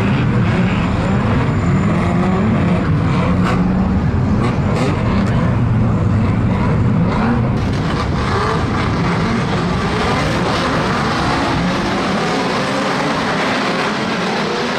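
A pack of old pre-1975 banger racing cars' engines running together, rising and falling in pitch as the drivers blip their throttles on the slow rolling lap before the start.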